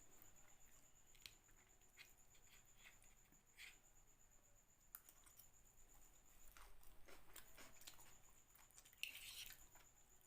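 A person chewing and biting food: faint, scattered crunches and mouth clicks, with a louder crunch about nine seconds in.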